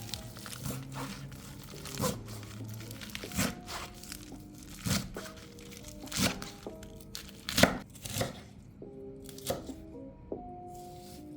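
Background music with a stepping melody, over sharp, irregular knocks and crinkling from food being handled or cut, about eight of them, the loudest about two-thirds of the way through.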